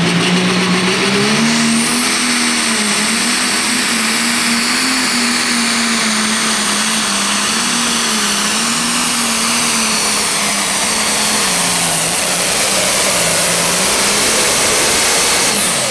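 John Deere Pro Stock pulling tractor's turbocharged diesel engine running at full load down the track. The engine note rises about a second and a half in, then wavers as it pulls. Over it a high turbo whine climbs and holds, cutting off just before the end.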